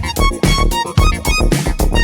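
Electronic dance music with a steady thumping beat, about two beats a second, and short synth notes over it.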